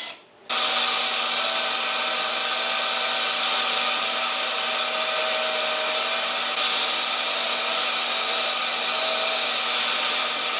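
A cordless drill runs briefly at the start, then about half a second in a shop vacuum switches on and runs steadily, pulling dust through a hose connected to a pocket-hole jig.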